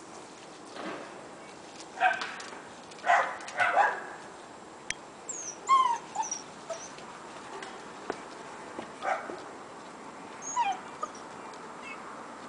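German Shepherd mother and puppies playing, with short yaps a few seconds in, then high, falling whimpering yelps around six seconds and again near eleven seconds.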